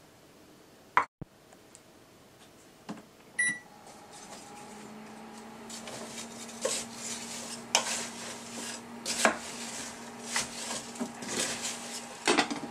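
An induction cooktop beeps once as it is switched on, then hums steadily as it heats. Over the hum, a wooden spatula turns apple slices in a stainless steel pot, knocking and scraping against the pot.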